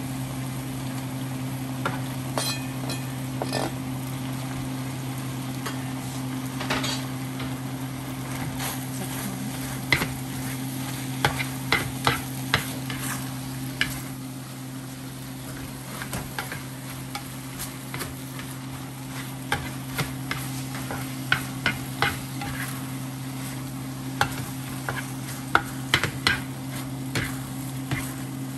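Stir-frying in a nonstick frying pan: food sizzles steadily while a utensil scrapes and taps sharply against the pan, the taps coming in irregular clusters, more often from about a third of the way in. A steady low hum runs underneath.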